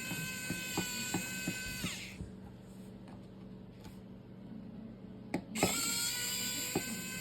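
Small electric precision screwdriver running with a steady whine that winds down about two seconds in and starts up again about five and a half seconds in. A few light clicks come in between.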